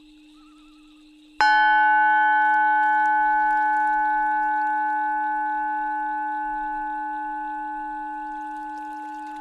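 A Tibetan singing bowl is struck once, about a second and a half in. It rings with several clear tones, the strongest near 852 Hz, and fades slowly over a steady low drone tone.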